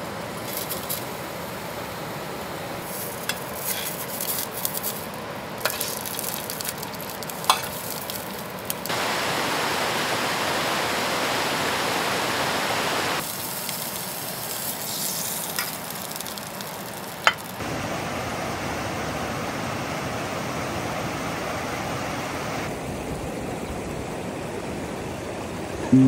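Sausages sizzling in a small aluminium pot over a canister gas stove, with sharp clicks of metal tongs against the pot as they are turned. The sizzle grows louder for a few seconds in the middle.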